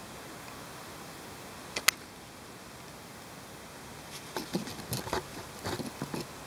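Camera handling noise over a steady faint hiss: one sharp click about two seconds in, then a run of irregular clicks and rustles in the last two seconds.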